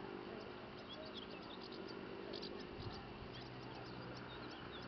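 Outdoor meadow ambience: insects chirping in many short, high ticks, a few small bird chirps, and a faint, low, steady hum underneath.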